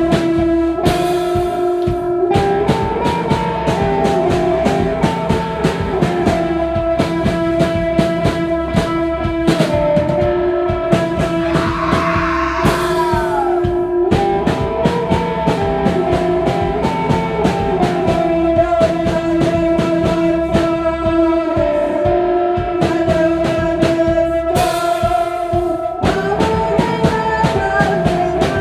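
Live rock music from electric guitar and drum kit: the guitar holds a steady droning note over a steady drum beat, with cymbal crashes near the start, in the middle and near the end.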